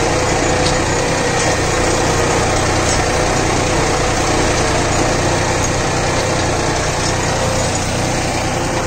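Deutz-Fahr Agromaxx 4055E tractor engine running steadily while pulling a rigid cultivator through dry soil, its ADDC lift sensing in use.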